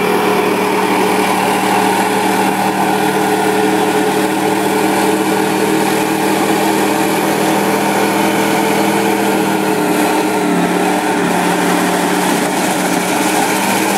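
Ford F-150 pickup engine held at steady high revs during a burnout, its rear tyres spinning in clouds of smoke. The engine pitch holds nearly constant, dipping slightly about ten seconds in.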